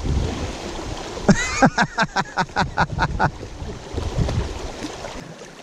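Shallow river current rushing steadily over gravel around a wading angler's legs. About a second and a half in, a quick run of evenly spaced short pulses, about five a second, lasts some two seconds.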